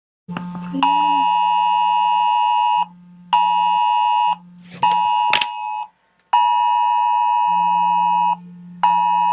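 Wireless Emergency Alert attention signal from a phone, announcing a National Weather Service dust storm warning. It is a loud two-tone beep in a repeating pattern of one two-second blast and two one-second blasts with half-second gaps. Under it a low buzz comes and goes, and a sharp click lands about five seconds in.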